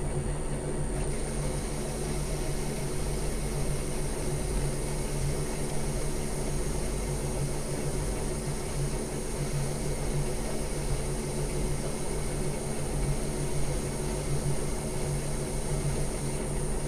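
Metal lathe running at speed with a steady motor and drive hum while the tool bit takes a light finishing cut on steel stock. The cutting noise comes in about a second in and eases near the end.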